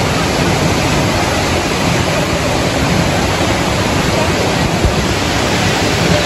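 Waterfall and river cascades: a loud, steady rush of falling water.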